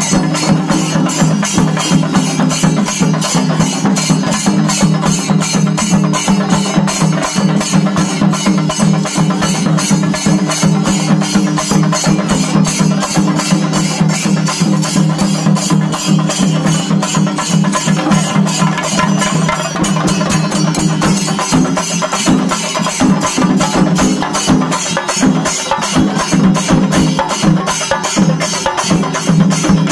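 Singarimelam ensemble playing: chenda drums beaten with sticks in a fast, steady, driving rhythm, with elathalam hand cymbals clashing along.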